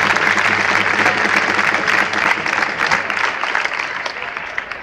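Crowd applauding, many hands clapping, dying away over the last couple of seconds.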